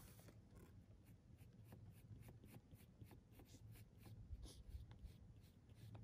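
Pencil scratching lightly on paper in short, quick sketching strokes, about three a second; faint.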